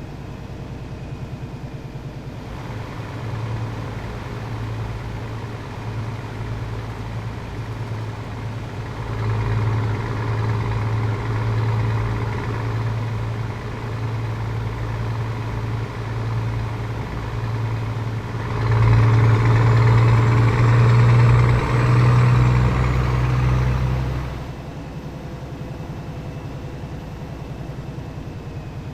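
Scania 500S truck's six-cylinder diesel running through a straight-pipe exhaust, a deep steady rumble. It grows louder about a third of the way in, is loudest for several seconds past the middle, then falls back near the end.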